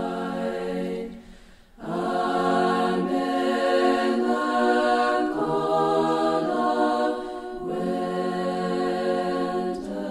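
A choir singing a slow chant in long held notes, with a brief pause about a second and a half in and a slight lull near the end.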